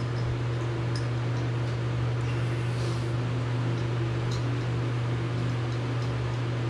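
Steady low mechanical hum with an even hiss over it, like a running fan, with a couple of faint light clicks, about a second in and again past four seconds, as the faucet handle is turned.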